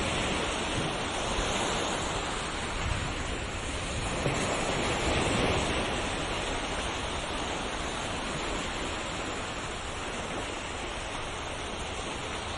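Ocean waves breaking and washing on a shore, a steady rushing surf that swells about five seconds in and then eases.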